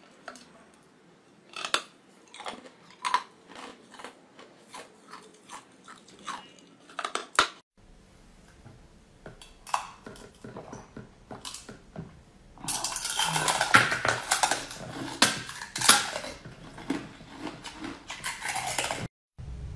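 Close-miked eating: sharp, crisp bites into a brittle treat, one after another, then after a short break a dense, continuous stretch of crunching and chewing in the second half, the loudest part.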